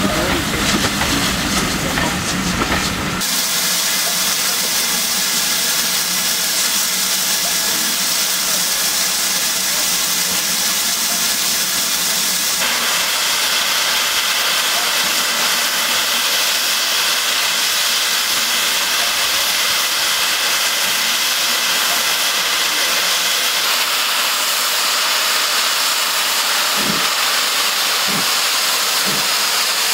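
For about the first three seconds, a steam train runs past with a low rumble. Then a USATC S160 2-8-0 steam locomotive standing at a platform hisses steadily, steam blowing from its open cylinder drain cocks and from the top of the boiler. A few soft low thumps come near the end.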